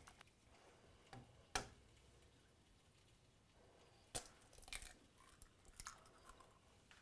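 Faint, sparse sounds of a wooden spoon beating egg into sticky choux paste in a pan: soft squelches and a few short knocks of the spoon against the pan, the clearest about one and a half seconds in and again about four seconds in.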